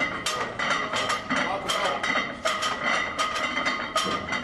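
Onlookers in a weight room clapping and shouting encouragement: several sharp, irregular claps a second under raised voices.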